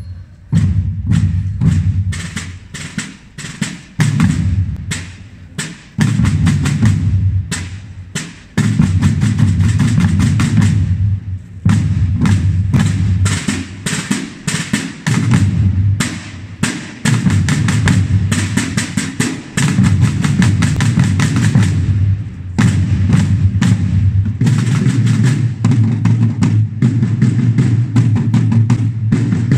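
Procession drum corps playing slung side drums: rapid, dense strokes in phrases, with brief drops in the first dozen seconds.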